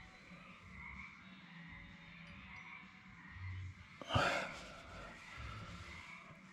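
Faint frog chorus in the background. About four seconds in, a sharp click is followed by a short rush of breathy noise.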